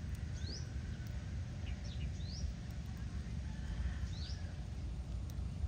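A few short, high, rising bird chirps, spaced a second or more apart, over a steady low outdoor rumble.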